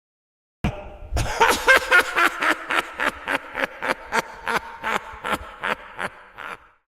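High-pitched, mocking evil laugh of a fantasy dwarf character: a fast run of sharp 'ha' bursts, about four a second, starting about half a second in and lasting about six seconds.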